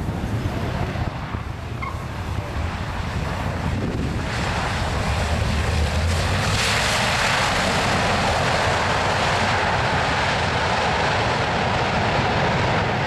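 Lockheed C-121C Super Constellation's four Wright R-3350 radial piston engines running on the ground, with wind buffeting the microphone. The engine sound swells about four seconds in, grows louder again soon after, then holds steady.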